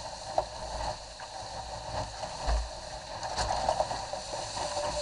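Water rushing and splashing along the hull of a Cherub sailing skiff moving fast through chop, with dull knocks now and then as it meets the waves.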